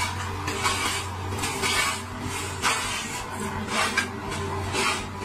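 A lawnmower running steadily while held up on top of a hedge, its blades cutting into the branches with repeated rough bursts of noise every half second or so.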